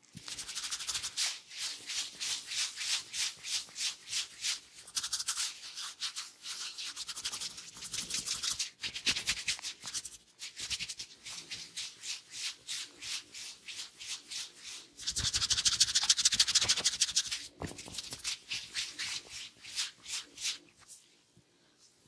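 Fingers rubbing and scrubbing briskly through a man's hair and scalp in a head massage, a dry, rapid, rhythmic rustling. It is loudest for a couple of seconds just past the middle, then weakens and dies away near the end.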